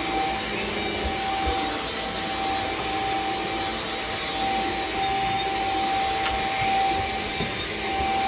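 Cordless stick vacuum running steadily with a two-pitched motor whine as its powered floor head is pushed over a rug and carpet.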